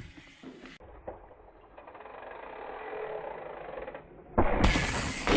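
Mountain bike being ridden on dirt: tyre rolling noise and wind rushing over the microphone, building slowly, then suddenly much louder about four seconds in.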